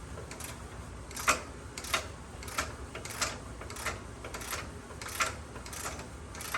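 Hand ratchet clicking in a steady rhythm, about one click every two-thirds of a second, as it turns a ball-joint nut that is working loose.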